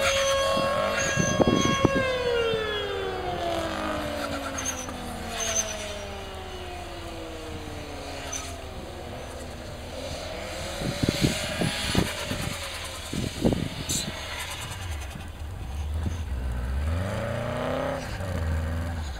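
Subaru WRX's turbocharged flat-four engine held at steady high revs, then the revs falling slowly over several seconds. Later come a few sharp knocks, and the engine picks up again near the end.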